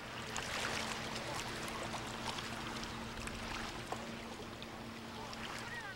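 Small waves lapping and trickling among the shoreline rocks, with many little irregular splashes and ticks, over a steady low hum.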